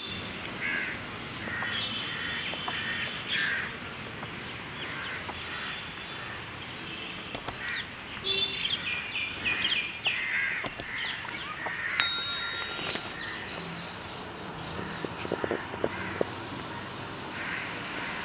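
Crows cawing repeatedly, with smaller birds chirping, over steady outdoor background noise.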